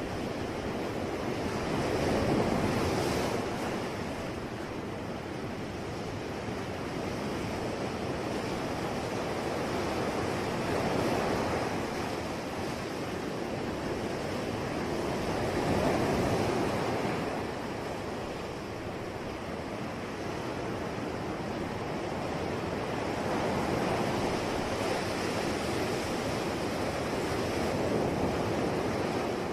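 Sea waves breaking and washing onto the shore, swelling and easing in repeated surges every several seconds, with some wind.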